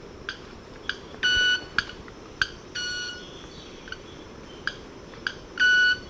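Club-winged manakin's courtship sound, made with its wing feathers. Sharp ticks are each followed by a steady, high ringing tone of about half a second, three times over.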